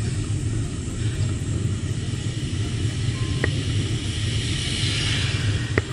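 Wind buffeting the microphone of a camera on a moving bicycle: a steady, fluttering low rumble with road and tyre noise. A short tick sounds about three and a half seconds in, and another near the end.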